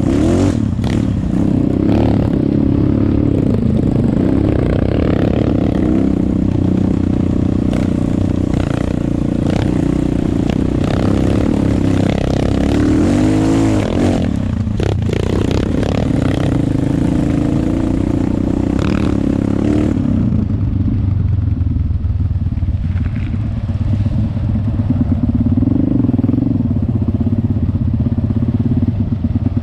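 Trail motorcycle engine running as the bike rides a dirt track, its pitch rising and falling with the throttle and a quick rev up and down about 13 seconds in. The engine eases off and sounds duller about two-thirds of the way through.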